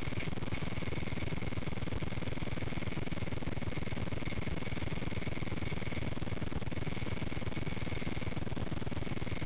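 Steady hiss with a faint, thin, high whine running through it: the small electric motor and rotor of a micro RC helicopter.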